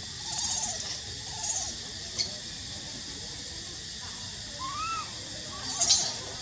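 Baby monkey crying in about five short, arching cries, the loudest near the end, over a steady high hiss.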